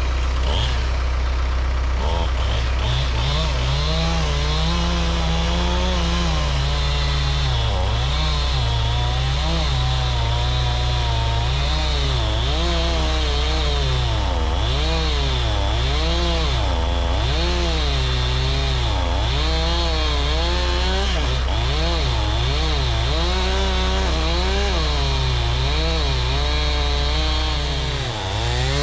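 Engine running continuously over a steady low drone, its pitch swinging up and down every second or two, with a brief dip near the end.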